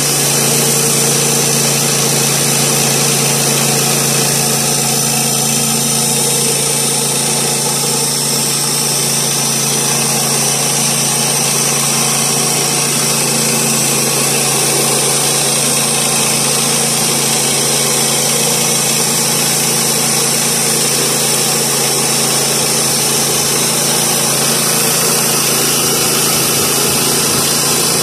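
Woodland Mills HM122 bandsaw mill's 7 hp engine running at a steady pitch under load while the band blade cuts through sycamore, with a steady high hiss over the engine note.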